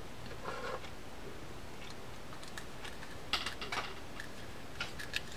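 A few light clicks and taps of small fishing reel parts and screws being handled, with a soft rustle about half a second in; the sharpest clicks come a little past three seconds in and again near the end.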